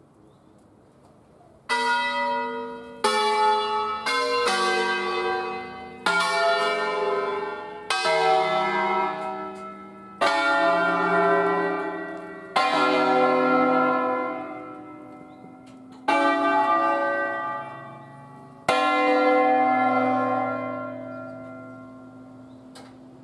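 Eight tuned church bells in C, hung on wheels and rung by hand in a solemn concerto. After a quiet opening second and a half come about ten separate strokes at uneven intervals, each bell ringing on and fading, and the last one dies away near the end.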